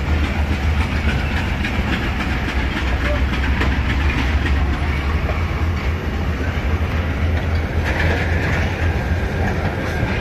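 Pakistan Railways passenger coaches rolling past a platform: a steady low rumble of wheels on rail, with the clickety-clack of wheels running over rail joints.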